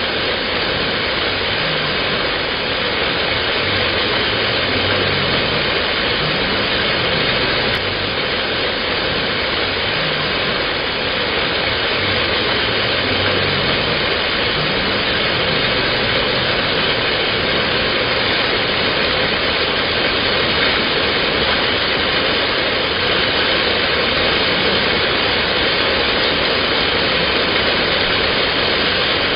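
Waterfall pouring into its plunge pool close by: a loud, steady rush of falling water that stays even throughout.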